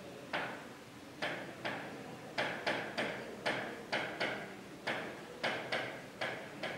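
Felt-tip marker writing on a whiteboard: a run of short, quiet scratchy strokes, two or three a second and unevenly spaced, as a line of handwritten letters goes up.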